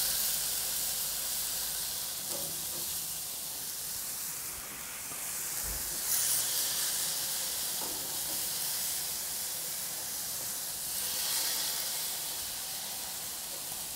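Ground beef sizzling on a very hot cast-iron griddle plate. The sizzle swells several times as meatballs are pressed flat under a grill press, with a soft low thump a little before the middle.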